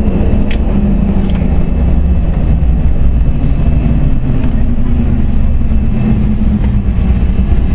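Steady loud cabin noise of a CRJ-200 regional jet in flight on approach: airflow and the rear-mounted turbofan engines make a deep, even roar with a low hum. A brief click comes about half a second in.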